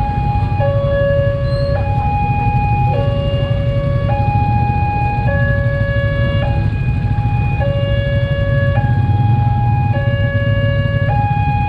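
Railway level-crossing warning alarm sounding its two-tone electronic signal, a high and a low tone taking turns about every second, which warns that a train is coming. A steady low rumble runs underneath.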